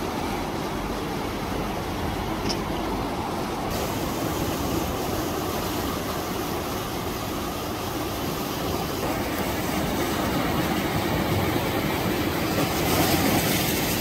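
Sea surf: waves breaking around concrete tetrapods and washing up the shore in a steady rush, swelling a little near the end.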